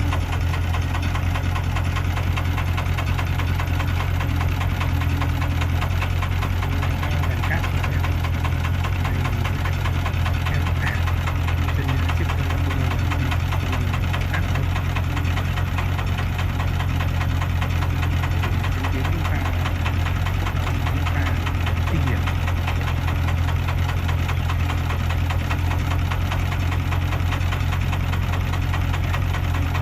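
Heavy diesel engine running steadily at constant speed, with a fast, even beat.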